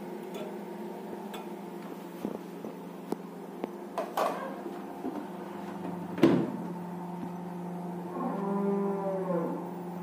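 A hot metal baking tray of fries is lifted out of a convection microwave oven with a cloth and set down on a kitchen counter. It makes a few clicks and knocks, the loudest about six seconds in. A steady electrical hum runs underneath and swells and wavers near the end.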